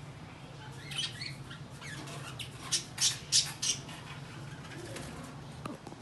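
Caged budgerigars chirping and chattering in short, sharp calls, with a loud cluster of calls about halfway through, over a steady low hum.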